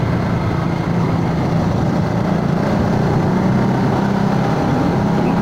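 Motorcycle engine running steadily at an even cruising speed while riding, with road and wind noise, recorded on a phone.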